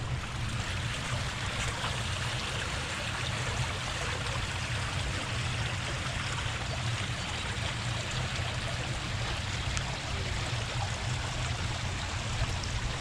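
Shallow stone-walled stream running over rocks and a small drop, an even, steady rush of water, with a steady low rumble underneath.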